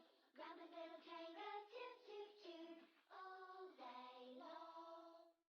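Quiet children's song with a child-like singing voice carrying a stepping melody, cutting off abruptly near the end.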